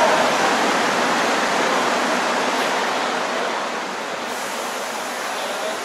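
Subway train in motion: a steady rushing rumble that eases a little about two-thirds of the way through.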